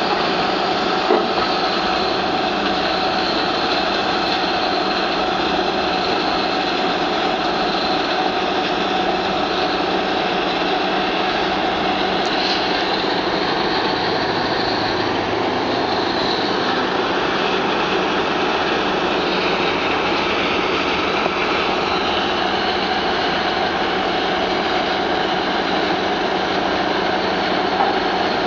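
Mobile tracked impact crusher running under load, crushing reinforced-concrete and ceramic demolition rubble: a loud, steady machinery noise with steady tones running through it. A few sharp knocks stand out, about a second in and near the end.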